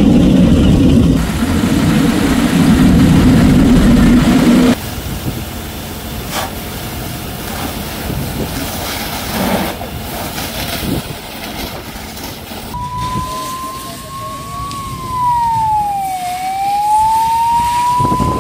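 A loud low rumble for the first few seconds that cuts off abruptly, then, about thirteen seconds in, a fire engine siren wailing: its pitch rises slowly, dips, and rises again.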